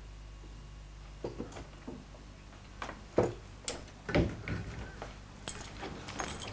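Scattered light knocks and clicks of a door being opened and shut and footsteps on a tiled floor in a small room, with a few sharp small rattles near the end.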